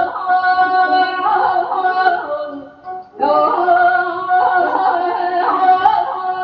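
A woman singing Persian classical avaz, long held notes broken by quick yodel-like trills (tahrir); she stops briefly for breath about three seconds in, then starts the next phrase.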